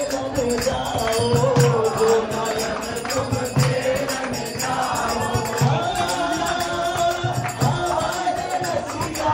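Devotional group singing for Holi, a male lead voice on a microphone with the group joining in, over a harmonium and a barrel drum beating a steady rhythm, with jingling percussion on top.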